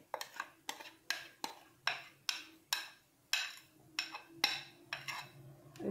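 A metal spoon clicking and scraping against a small metal pan as melted chocolate is scraped out into a bowl of whipped cream: a series of sharp clicks, about two or three a second.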